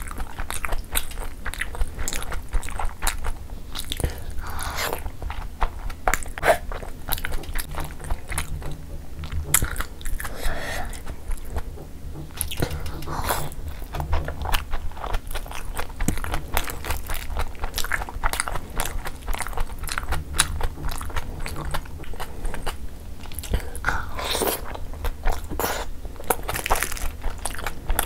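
Close-miked eating of gravy-soaked steamed chicken momos: wet biting and chewing with many small mouth clicks and smacks throughout.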